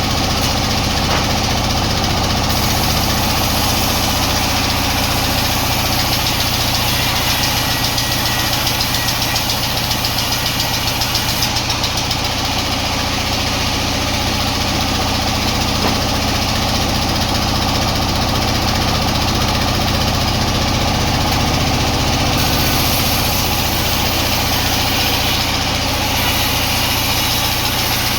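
Sawmill machinery running steadily: a loud, even mechanical drone with a low hum that does not change.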